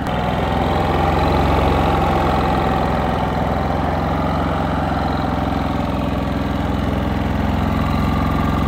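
Cummins Onan P4500i inverter generator running steadily in eco mode with no load, a new engine on its first start, nice and quiet.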